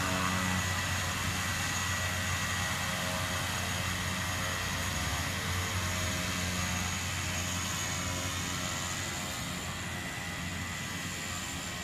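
The skydiving jump plane's engine and propeller running steadily, with a steady high whine over the low engine note. It slowly grows fainter.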